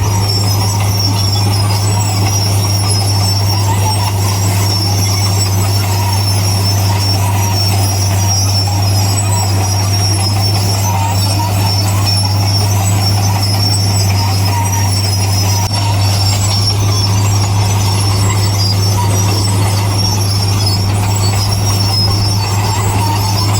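Bulldozer's diesel engine running at a steady pitch under constant load, with a steady high whine above it.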